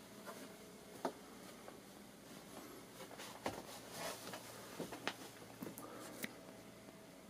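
Quiet small-room tone with scattered faint clicks and soft taps, the handling noise of a handheld camera being moved, over a faint steady hum.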